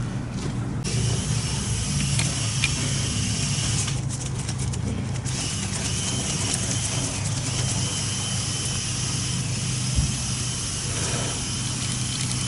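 A steady low engine hum, like an engine idling, under a constant hiss, with a few light clicks about four to five seconds in.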